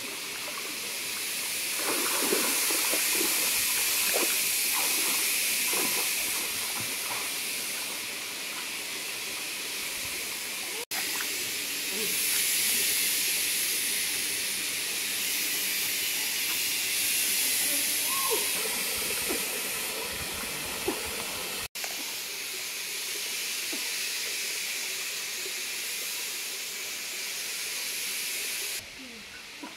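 Steady, high-pitched hiss of a forest stream setting, with faint knocks and scrapes underneath and one short chirp. The hiss dips out for an instant twice where the shots change.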